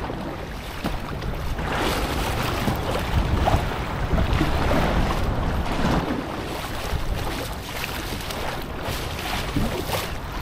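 Wind buffeting the microphone over water lapping and splashing around a kayak being paddled on open water, a little louder for a few seconds near the start.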